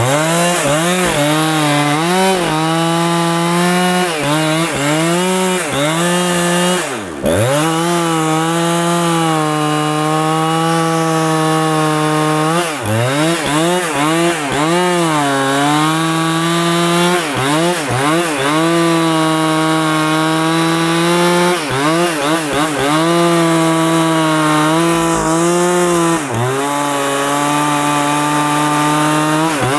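Petrol chainsaw cutting into the trunk of a large rain tree, its engine pitch repeatedly sagging under load and picking back up. About seven seconds in, the engine drops sharply, nearly bogging down, then recovers.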